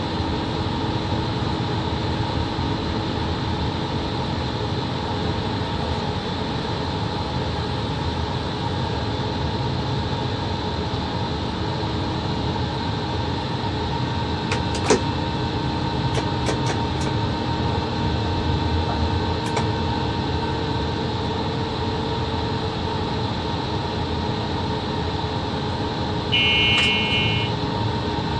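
Steady running noise inside the cab of a VL80 electric locomotive hauling a freight train: a constant hum and rumble with faint steady tones. A few sharp clicks come about halfway through, and a short electronic beep sounds near the end.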